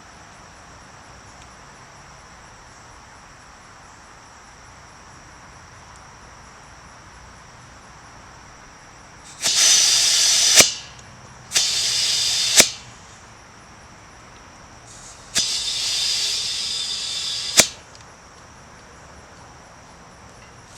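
Three short bursts of hissing, about a second, a second and two seconds long, each cut off with a sharp click, after several seconds of a low steady background.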